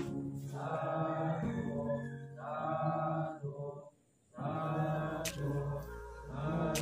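Men's voices chanting together in long, held tones. The chant breaks off for a moment about four seconds in, then carries on.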